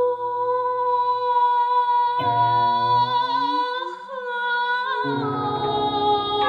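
A woman singing a Chinese song over a backing track of Chinese instruments: one long held note, with lower instrumental notes coming in about two seconds in and a fuller accompaniment from about five seconds in.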